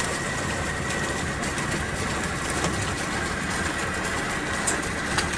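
Small boat motor running steadily, a continuous even noise with a faint high hum over it.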